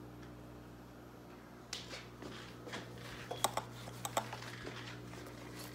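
A microfiber cloth wiping fingerprints off the panels of a large-scale RC buggy: short rubbing and rustling strokes with sharp little clicks and taps, starting a second and a half or so in, over a steady low hum.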